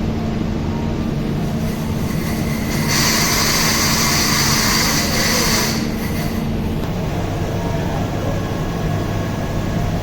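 Chiller water pump running as a loud, steady machine hum, with a steady tone that drops out about two-thirds of the way through. A hiss rises over it from about three seconds in and lasts roughly three seconds.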